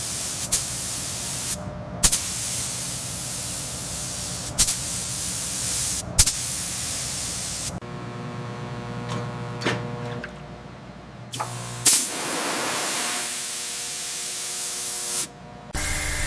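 Steady hissing spray-like noise in several segments separated by abrupt cuts, with a steady hum running beneath it for a few seconds in the middle and again near the end.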